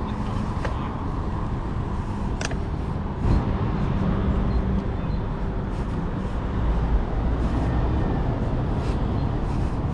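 Riding noise of a bicycle heard through a camera held in the rider's teeth: a steady rumble of wind and road, with a sharp click about two and a half seconds in and a bump just after.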